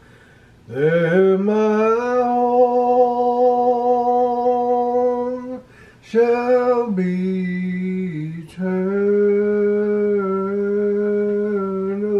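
A man singing a slow gospel song unaccompanied, drawing out a few long held notes with short breaths between them.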